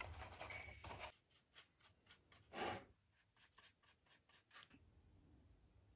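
Faint scraping of a small paintbrush working wood filler paste: about a second of continuous stirring in a plastic tub, then a run of short strokes, one louder about two and a half seconds in.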